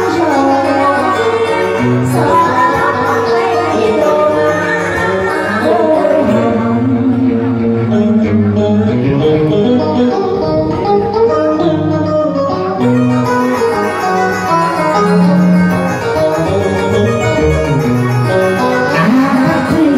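Live Vietnamese duet song: singing over electronic keyboard accompaniment, continuous throughout.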